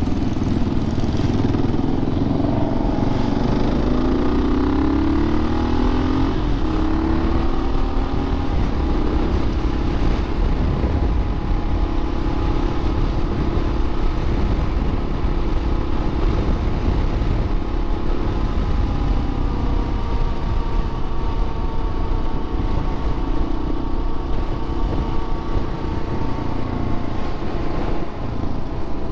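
Motorcycle engine under way, its pitch rising over the first several seconds as it accelerates, then holding steady at cruising speed.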